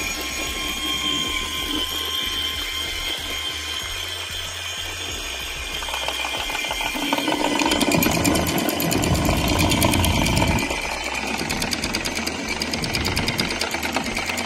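Lewmar electric anchor windlass hauling in the anchor. A steady motor whine runs while rope rode winds in. From about halfway in it gets louder, with a rapid rattling clatter as the chain feeds over the gypsy, and it stops near the end as the anchor reaches the bow roller.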